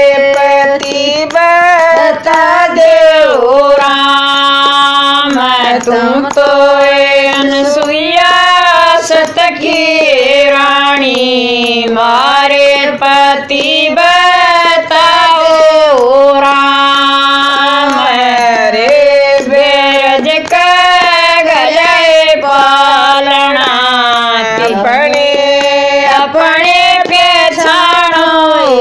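Women singing a Haryanvi devotional bhajan in unison, in long held notes that bend up and down between phrases.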